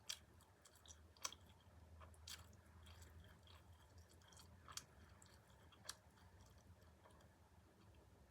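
A person chewing food close to the microphone, faint, with a few sharp crunches or mouth clicks spread through it.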